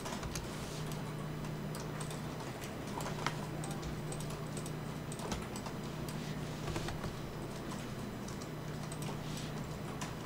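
Computer keyboard and mouse clicking at irregular intervals, short sharp clicks with a steady low hum underneath.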